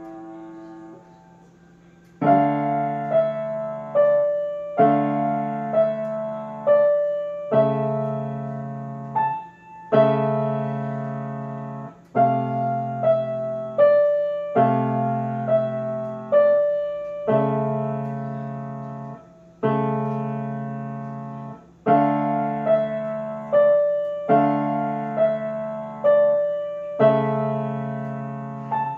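Solo grand piano: a note dies away over the first two seconds, then the playing resumes with a steady beat of struck notes and chords, each ringing and fading.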